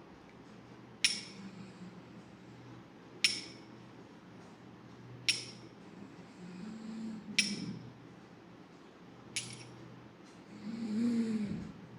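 Five sharp clinks, evenly about two seconds apart, each with a brief high ring, followed near the end by a short low hum.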